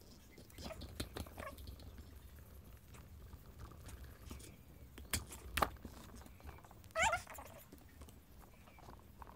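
Clicks and knocks of plastic pipe and small parts being handled on a table. About seven seconds in there is a short wavering pitched sound.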